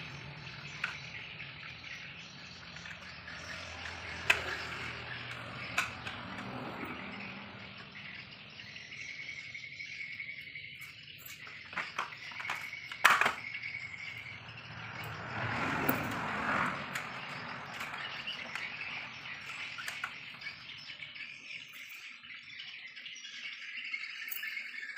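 Scattered plastic clicks and knocks from a stripped Epson L120 printer mechanism being handled and fitted back together by hand; the loudest is a sharp knock about thirteen seconds in. Twice near the middle a high, steady chirp sounds for a second or two.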